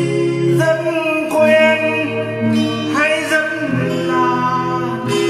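Instrumental interlude of a slow song, with guitar: sustained melody notes over chords, no words sung.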